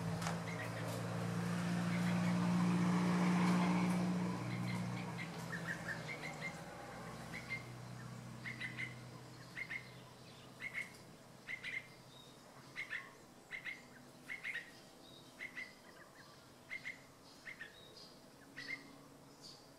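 Yellow-vented bulbul giving short, sharp call notes, repeated about once a second through the second half. A low hum swells in the first few seconds and fades away.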